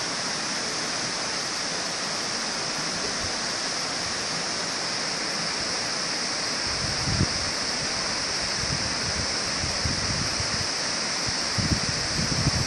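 Steady rushing of river water running among granite boulders in a narrow gorge, with a few soft low bumps about seven seconds in and again near the end.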